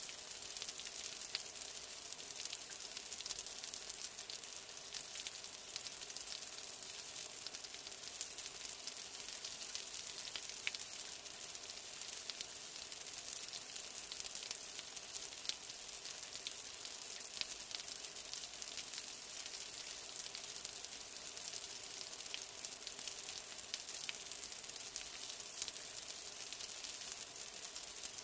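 Steady rain: an even high hiss with a dense scatter of individual drops ticking.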